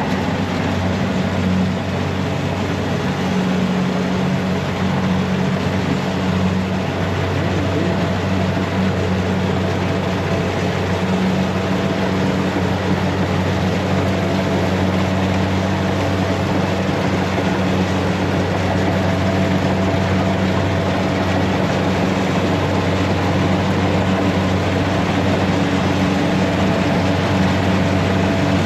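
Rice combine harvester's engine running steadily under load, with a constant low hum and a broad mechanical rush.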